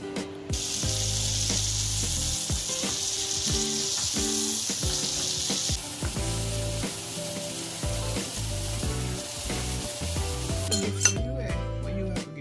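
Food frying in a hot pan: a steady sizzle that eases about halfway through and stops near the end. Background music plays underneath.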